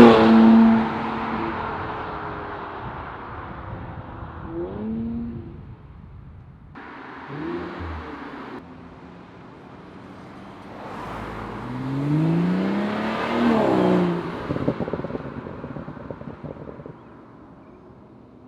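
Turbocharged six-cylinder car exhaust with a modified exhaust: a rev dies away at the start, then about eleven seconds in the engine revs up, rising in pitch, and a quick run of crackles and pops follows as it comes off the throttle.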